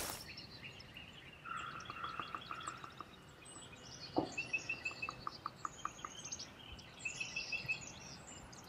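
Small birds calling over quiet outdoor ambience: several runs of short, quick chirps at a few different pitches, with one faint tap about four seconds in.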